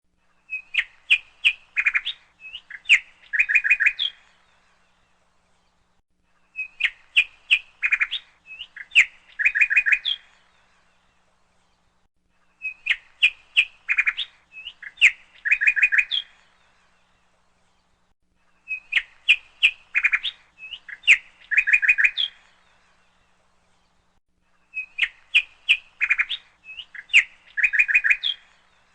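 A bird chirping: a phrase of about three and a half seconds of quick, high chirps and short trills, then a gap of about two and a half seconds. The identical phrase repeats five times, every six seconds, as a looped recording.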